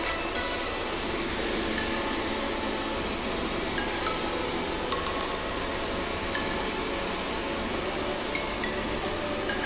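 Handheld hair dryer running steadily, blowing on wet hair.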